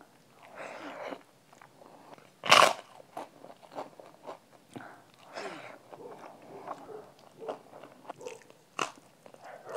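Close-up eating sounds: a loud, sharp crunch of a papad being bitten about two and a half seconds in, another crisp crunch near the end, and chewing with small crunches and clicks between.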